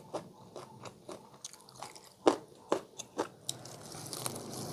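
Mouth biting and chewing raw petai beans: a run of irregular crisp crunches, the loudest a little past two seconds in, giving way near the end to softer, steadier chewing noise.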